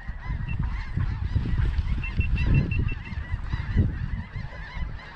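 A large flock of snow geese calling overhead, a continuous dense chorus of high, yelping honks, with wind gusting on the microphone underneath.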